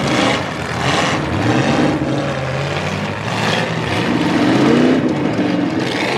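Engines of several demolition derby cars running and revving in the arena, their pitch rising and falling as they rev up and let off.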